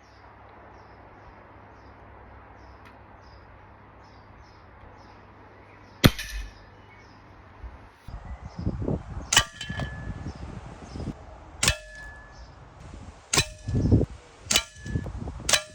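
A Weihrauch HW99S spring-piston air rifle fires once about six seconds in, a single sharp crack. After it come rustling handling noises and five sharp metallic clicks, each with a brief ring.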